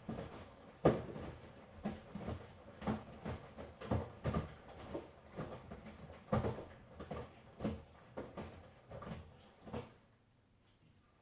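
Miele front-loading washing machine in a wash cycle, the laundry tumbling in the turning drum with irregular soft thuds, about two a second, the loudest about a second in. The thuds stop about ten seconds in as the drum pauses between turns.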